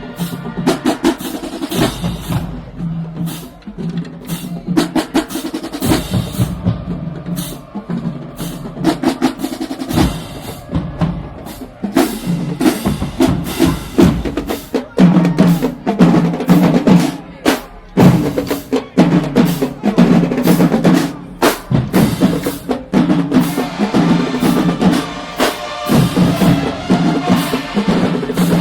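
HBCU marching band drumline playing a marching cadence: rapid snare-drum rolls and bass-drum hits, with steady low pitched notes underneath.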